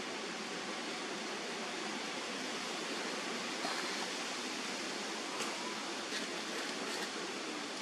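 Steady, even hiss of background noise with a few faint ticks in the second half.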